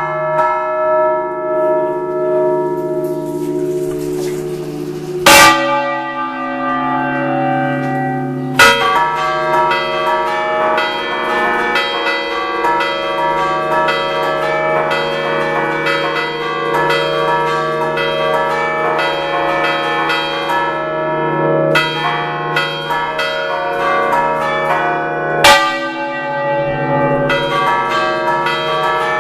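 Concerto of six church bells tuned in D, cast by the Picasso foundry, rung by hand in the Ligurian "a ducale" style and heard close up inside the belfry. A few separate loud strokes ring out first; from about nine seconds in the strokes come thick and fast, overlapping into continuous ringing, with a sharper loud strike near the end.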